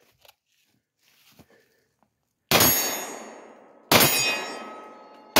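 Three pistol shots from a Glock 19, the first about halfway through, then about a second and a half apart, the last right at the end. Each is followed by a long ring that fades away.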